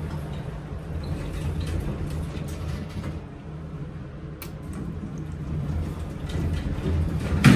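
Doors of a 2003 Otis traction elevator closing and slamming shut near the end with one loud bang, a door slam the owner calls horrible, over a steady low hum. A single sharp click comes about halfway through.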